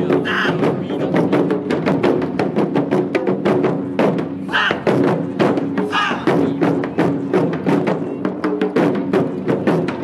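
Taiko drum ensemble playing a fast, driving rhythm on barrel-shaped drums, a dense run of strokes with booming drumheads. Short shouted calls from the drummers come three times: just after the start, around four and a half seconds in, and again at about six seconds.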